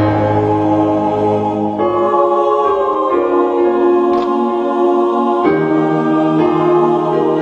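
Choral music: slow, sustained sung chords that change every second or two.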